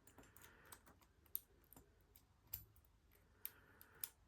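Faint, irregular small metal clicks and light scraping of lock picks and a tension wrench against a Squire LN4 padlock as the pick is changed and set back into the keyway, with a few sharper ticks spread through.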